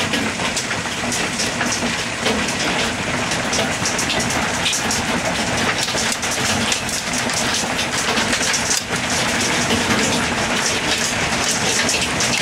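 Hail and rain coming down hard: a dense, steady clatter of many small hits striking surfaces.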